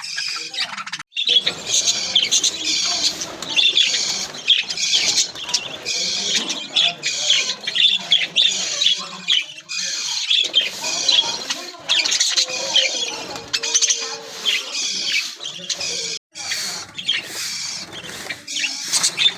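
A flock of budgerigars (budgies) in an aviary chattering and chirping together, a dense overlapping warble that runs continuously, broken by two brief gaps.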